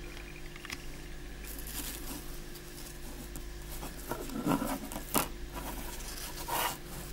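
Handling noise of fingers touching and moving a thin gold-plated skeleton leaf: light rustles and scrapes, with a few louder scraping clicks in the second half, over a faint steady hum.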